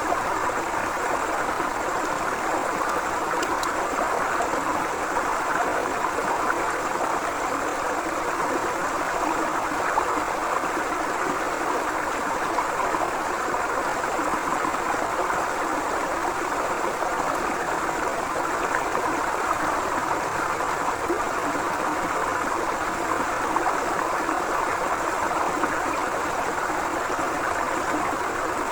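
Forest river flowing steadily, a continuous rush of running water with a light gurgle.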